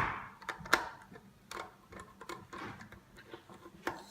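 Irregular small clicks and light taps, loudest right at the start and just under a second in, from screws and a screwdriver being handled against the plastic housing of a car dashboard display.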